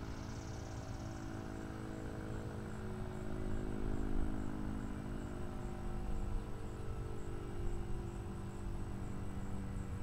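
Sentry 10V rotating outdoor warning siren sounding a steady alert tone from a few hundred feet away, growing louder about four seconds in and again a couple of seconds later as the rotating horns sweep around.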